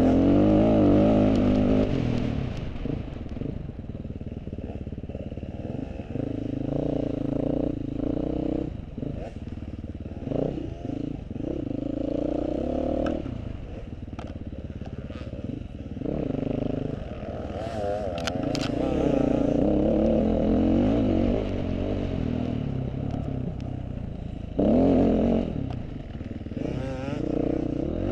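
Off-road motorcycle engine revving up and easing off again and again as it is ridden through mud. A few sharp clatters come about two-thirds of the way through.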